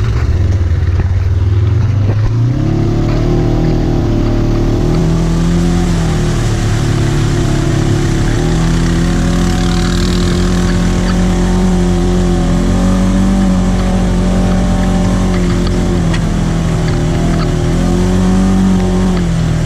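Polaris RZR 900S side-by-side's twin-cylinder engine running under way. It picks up in pitch about two and a half seconds in, holds a fairly steady speed, and eases back near the end.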